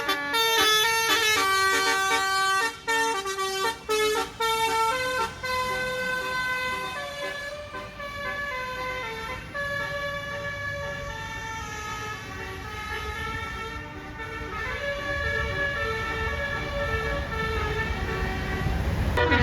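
Bus's Basuri telolet horn playing a melody, stepping from note to note, with quick notes at first and longer held ones later. A bus engine's rumble grows near the end.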